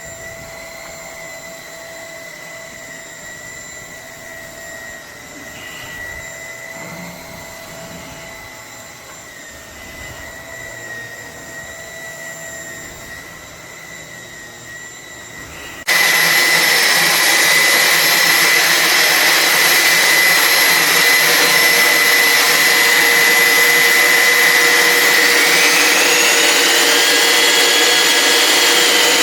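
Roborock H60 Ultra cordless stick vacuum running with a steady whine. Just past halfway the sound suddenly becomes much louder, and near the end its pitch glides up and falls back.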